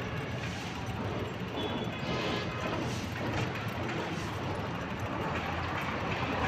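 Steady roar and hiss of road traffic passing on a busy road, with no single vehicle standing out.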